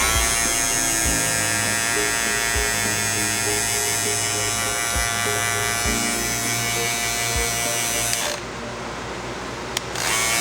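Andis GTX-EXO cordless hair trimmer running with a steady high buzz. It is switched off about eight seconds in, and a trimmer starts up again near the end.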